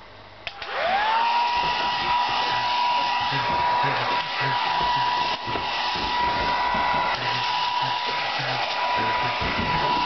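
Handheld hair dryer switched on with a click about half a second in. Its motor whine rises quickly to a steady pitch and then runs evenly, with a rush of blown air.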